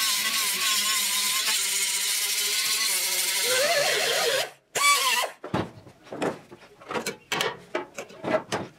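Wire wheel on a power tool scouring paint and rust off the car's sheet-metal body to expose spot welds. It runs with a loud steady whine that wavers with pressure and stops about four and a half seconds in. After a short burst, a run of short scratchy scraping strokes against the metal follows.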